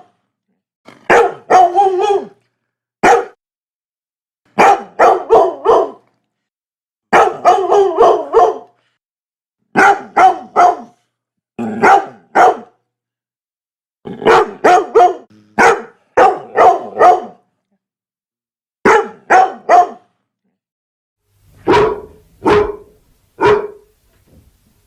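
Labrador retriever barking in quick runs of two to five barks, with short pauses between the runs.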